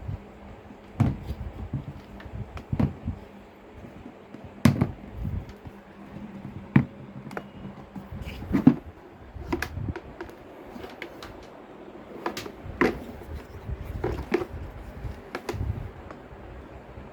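Irregular knocks and clicks of the hard plastic parts of a wet and dry vacuum cleaner being handled and fitted together.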